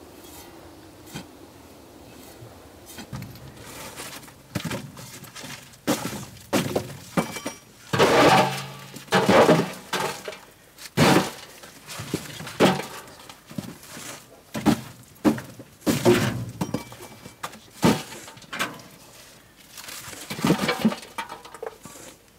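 Chunks of packed dried manure being pried loose with a metal bar and dropped into a metal bucket: a run of irregular cracks, knocks and thuds, about one a second, loudest in the middle.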